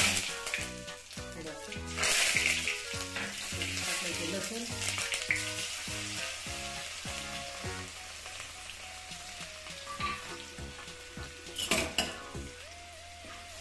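Hot oil sizzling and spluttering in an aluminium kadhai as a tadka of cumin and mustard seeds, curry leaves and green chillies fries, with loud spits at the start, about two seconds in and near the end. Soft background music plays underneath.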